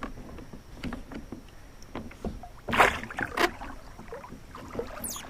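Knocks and bumps on a Hobie Outback fishing kayak's plastic hull as a caught redfish is handled aboard, with a louder bump about three seconds in.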